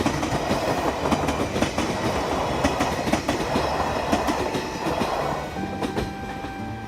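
A train running past on the JR Kyoto Line (Tokaido Main Line), its wheels clattering over the rail joints in a dense run of clicks. It eases off about five and a half seconds in, as music begins to come in.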